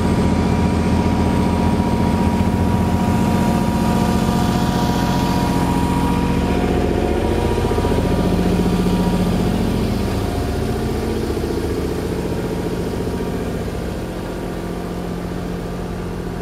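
Engine of the river ferry running steadily as it crosses, a low, even engine tone. It eases off and gets quieter from about two-thirds of the way through as the ferry nears the landing.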